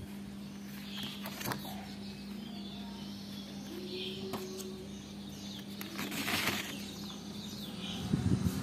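Hands handling a paper colour card and an open metal pencil tin: light clicks early, a rustle about six seconds in and a dull bump near the end, over a steady low hum.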